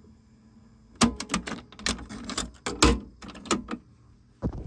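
Plastic clicks and clatter of a cassette being ejected and lifted out of the tape well of a TEAC W-350 cassette deck: a sharp click about a second in, then a string of knocks and rattles for nearly three seconds, and another click near the end.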